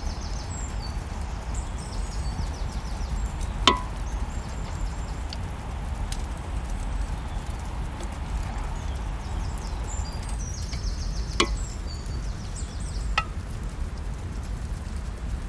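Three sharp knocks, spaced several seconds apart, over a steady low rumble, with repeated high-pitched chirps in the background.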